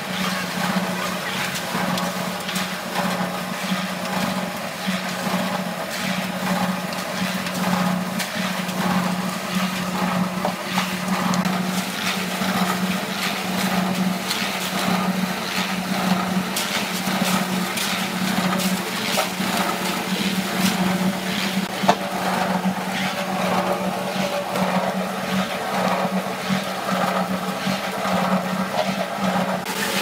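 Electric concrete mixer running with a steady hum, with irregular scraping and slopping of wet concrete being worked by hand with a hoe; one sharp knock about two-thirds of the way through.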